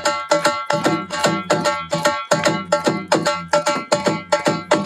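Bhangra music: a fast, even percussion beat with pitched melodic notes sounding on the strikes.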